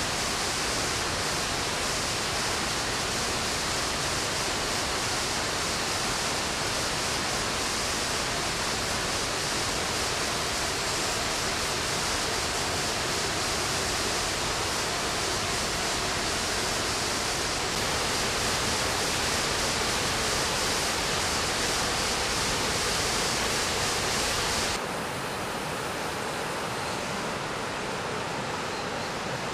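Steady rush of a waterfall and mountain stream, an even hiss of falling and running water. A little before the end it drops slightly in level and sounds a touch duller.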